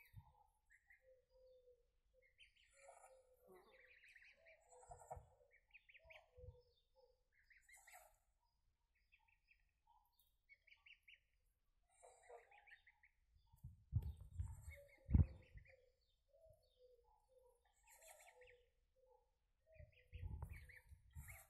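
Goslings peeping in short, faint, repeated calls while feeding. A few louder low thumps come a little past the middle and again near the end.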